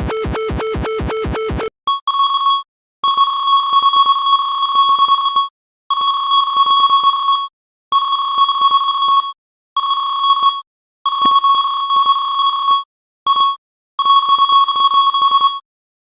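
Animation sound effects. First comes a pulsing buzz, about six pulses a second, that cuts off under two seconds in. Then a high ringing with a fast rattle starts and stops in about eight bursts of up to two and a half seconds, with short gaps between them.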